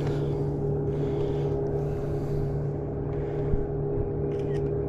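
Boat motor running steadily with an even, low hum, and a single short knock about three and a half seconds in.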